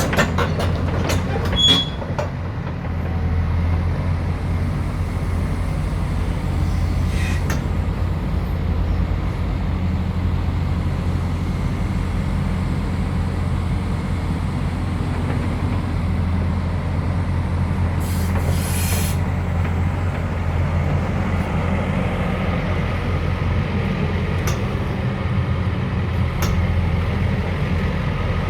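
JCB 220X tracked excavator's diesel engine running steadily with a low hum. A few clicks come in the first two seconds, and a short hiss comes about two-thirds of the way through.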